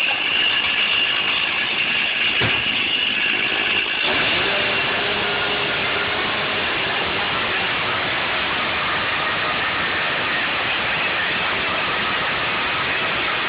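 Stihl two-stroke chainsaw running steadily.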